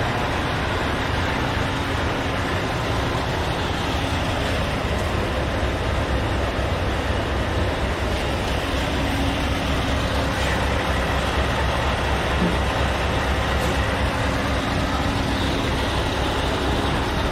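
Scania S730's 16.4-litre V8 diesel engine idling steadily, with a low, even, fast-pulsing sound.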